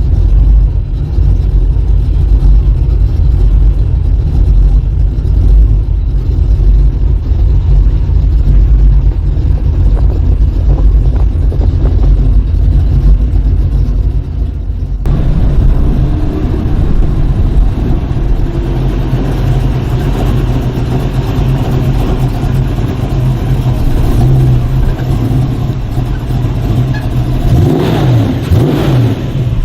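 Ford Mustang's engine and exhaust running with a heavy low rumble while driving, the sound changing abruptly about halfway through; near the end the engine revs up and back down.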